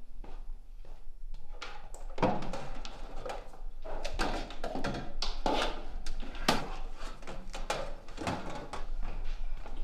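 Irregular knocks, bumps and clatters of objects being handled and moved as someone rummages through a cabinet, over a low steady hum.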